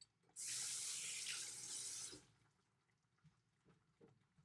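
A kitchen tap running for about two seconds, starting and stopping abruptly.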